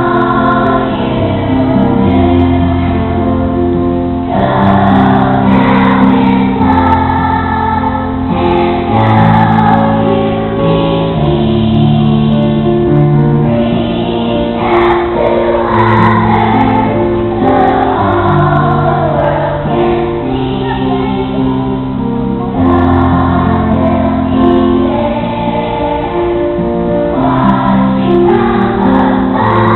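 Music with singing voices over long held bass notes.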